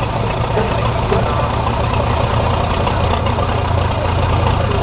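Trial truck's engine running steadily at an even pitch as the truck crawls across a steep side slope.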